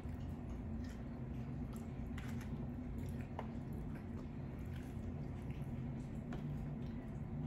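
Close-up chewing of a hard-shell taco: wet mouth sounds with scattered small crunches and clicks.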